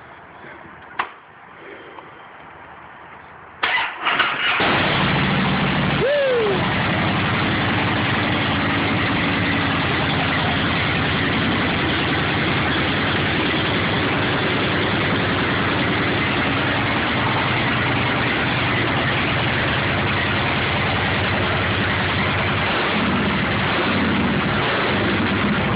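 2008 Harley-Davidson Fat Bob's Twin Cam 96 V-twin, on its first startup with new Big Guns 3 exhaust: the starter cranks it a little under four seconds in and it catches within a second, then idles loud and steady. A brief falling whistle sounds about two seconds after it fires.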